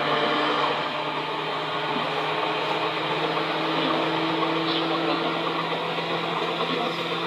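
Running sound inside a Seibu 2000 series electric train in motion: a steady rumble of wheels and running gear with a low steady hum underneath.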